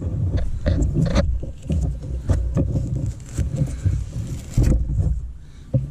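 Scattered clicks, knocks and rustles of hands handling drip-irrigation tubing and a small plastic sprinkler head being set into the ground, over an uneven low rumble. The rumble eases off near the end.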